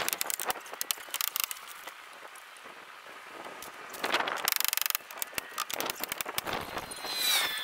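Scattered knocks and taps from carpentry work on a wooden roof frame during roof sheathing. A quick, even run of rapid clicks comes about halfway through.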